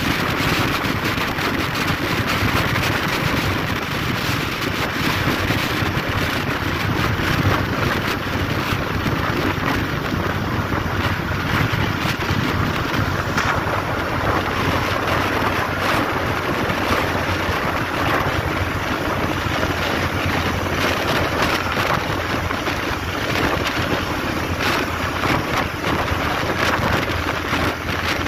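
Steady wind and road noise from a vehicle driving at speed on a highway, with wind rushing over the microphone.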